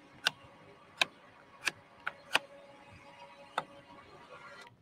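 Five sharp mechanical clicks at uneven intervals, roughly one every second or less, with a faint steady hum through the second half. This is a boat's spud-pole winch ratcheting as a spud is raised.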